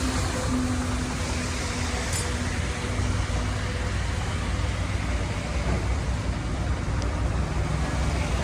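Bull backhoe loader's diesel engine running steadily, with a faint steady whine during the first few seconds.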